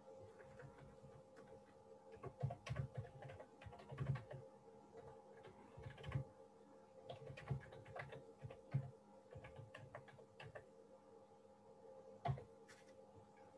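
Typing on a computer keyboard: irregular keystrokes in quick runs starting about two seconds in, pausing, then one last keystroke near the end, over a faint steady hum.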